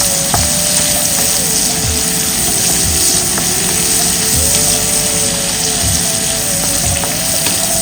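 Sliced onions and spices frying in hot oil, a steady loud sizzle, with a few soft knocks.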